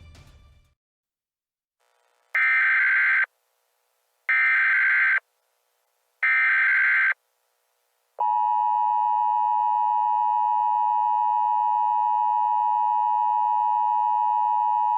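Emergency Alert System tones: three short, loud SAME header data bursts about two seconds apart, then the steady two-tone EAS attention signal starting about eight seconds in. Together they mark the start of an emergency alert broadcast.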